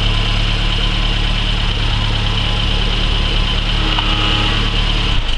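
BMW 320i's engine idling steadily, switched off about five seconds in.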